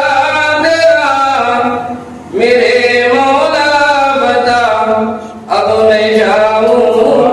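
A single voice chanting unaccompanied in long, drawn-out melodic phrases, with short breaks for breath about two and five seconds in.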